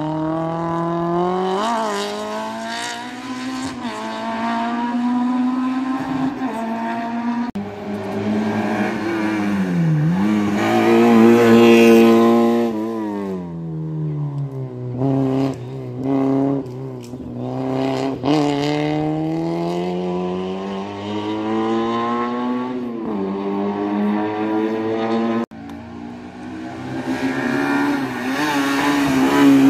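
Racing car engine driven hard on a slalom run, its pitch repeatedly climbing under acceleration and falling as it lifts off. There are short choppy bursts about halfway through and a sudden break near the end.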